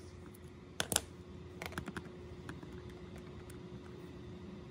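Keys being pressed on a Casio fx-115ES PLUS scientific calculator: a run of faint, sharp clicks, the loudest pair about a second in.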